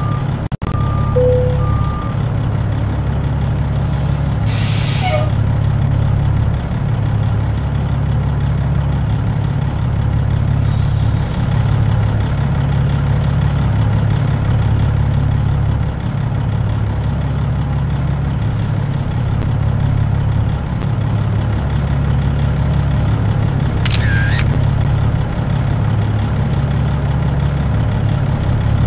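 Peterbilt 379's Caterpillar C15 ACERT diesel running steadily, its low note shifting every few seconds. A back-up alarm beeps for the first couple of seconds, and a short burst of air hiss comes about four seconds in.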